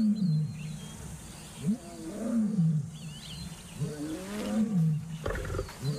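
Male lion roaring: three long calls about two seconds apart, each rising and then falling in pitch. A bird chirps faintly now and then.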